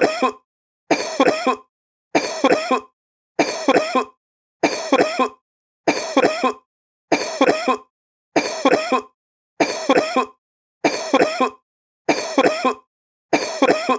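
A sick man's cough in short fits of two or three harsh coughs. The identical fit repeats about a dozen times, once every second and a quarter, with dead silence between: a looped coughing sample.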